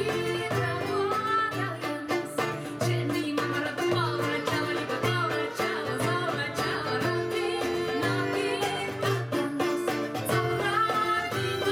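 Live Bulgarian folk song played by a small band: a woman's voice singing over two violins and a strummed acoustic guitar, with a steady low beat.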